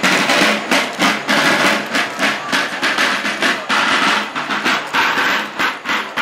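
Snare field drum, played with sticks, beating a steady marching cadence with strokes about twice a second and quicker strokes between.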